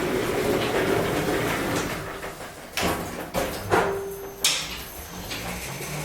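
Elevator door sliding with a rumble, then a series of sharp mechanical clunks and clicks, and a steady low hum of the lift's drive setting in near the end.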